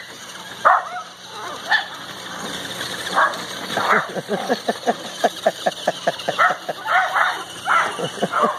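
Small dogs barking and yipping in short repeated bursts, the yips coming thick and fast in the second half.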